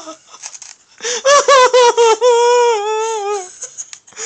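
High-pitched laughter in a squeaky put-on voice: a few quick pulses, then one long, slightly falling held note. A few soft clicks come just before it.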